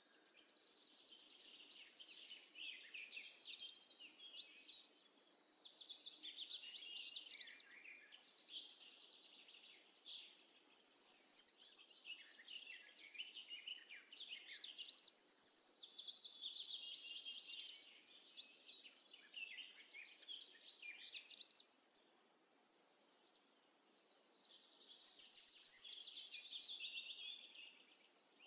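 Birds chirping and singing: quick twittering, gliding high notes in phrases a few seconds long, with short pauses between them.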